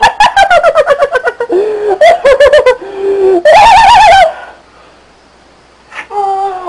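A person laughing loudly in rapid, high-pitched giggles, rising into a long wavering cackle about three and a half seconds in. After a short pause there is a brief held vocal sound near the end.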